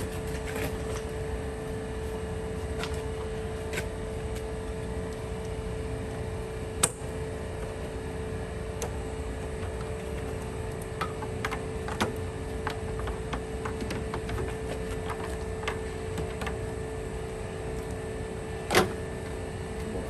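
Scattered clicks and knocks of hand work on car parts, fittings and clips being worked loose and handled, over a steady background hum; two sharper snaps stand out, about seven seconds in and near the end.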